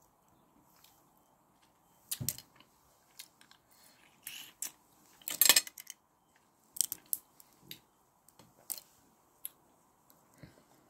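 Boiled crayfish shells cracking and snapping as they are broken open and peeled by hand: irregular sharp cracks, the loudest cluster about five and a half seconds in.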